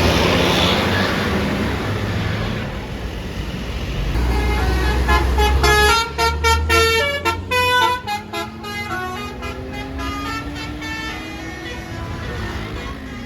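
A bus's basuri telolet air horn plays a quick melody of stepped notes for about four seconds around the middle, over the bus's engine and traffic noise. The engine note then rises steadily as the bus accelerates.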